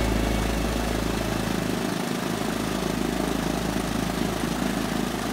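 Piper PA-28-140's four-cylinder Lycoming engine idling, its propeller turning, a steady low engine sound.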